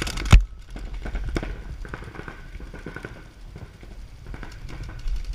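Scattered sharp pops of paintball markers firing, over a low rumble. A heavy thump about a third of a second in is the loudest sound.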